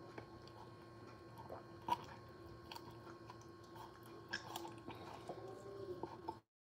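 Kitchen knife cutting into a raw chicken breast on a wooden cutting board: faint, scattered small crunches and clicks of the blade through flesh and bone, with one sharper click about two seconds in.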